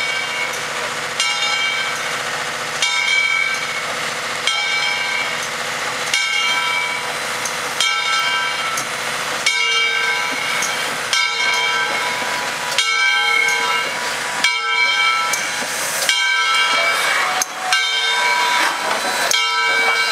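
Southern Railway 2-8-0 steam locomotive No. 630 moving slowly with steam hissing and its bell ringing, an even clang about every second and a half.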